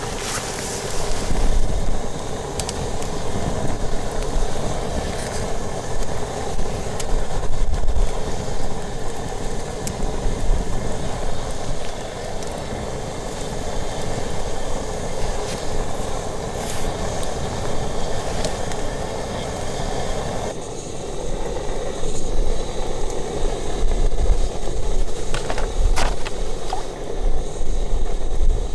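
Campfire burning steadily with a few sharp crackles of the firewood, and gusts of wind rumbling on the microphone.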